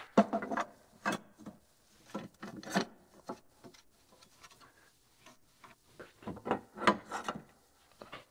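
Steel canopy frame arms being handled and fitted onto the brackets of a tractor's rollover bar: scattered knocks, clicks and metal-on-metal rubbing, in clusters at the start and again about six to seven seconds in.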